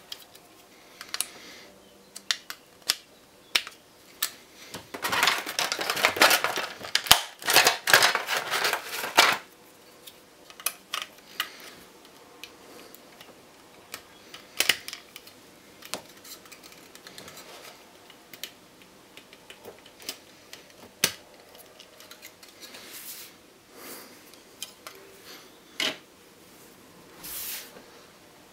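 Handling of a plastic desktop model airplane and its packaging: scattered clicks and taps of plastic on plastic and on the desk, with a few seconds of rustling plastic wrap about five seconds in, and shorter rustles later.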